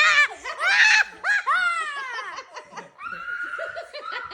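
People laughing hard, a run of high-pitched 'ha' bursts that rise and fall, loudest for the first couple of seconds and then dying down into quieter laughter.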